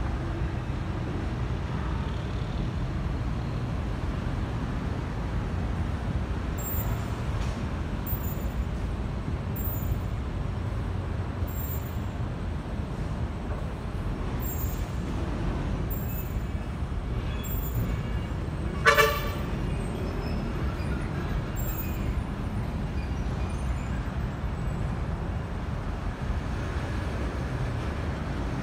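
Steady low rumble of road traffic, with one short vehicle horn toot about two-thirds of the way through, the loudest sound.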